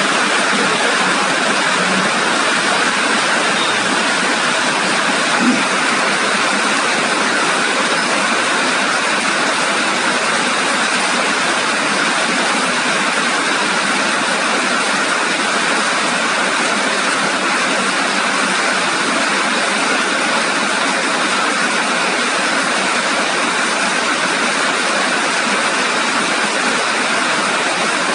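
Steady heavy rain pouring down, an even hiss without pauses.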